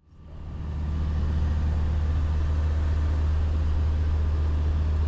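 Steady low rumble of a running vehicle, fading in over the first second and then holding even.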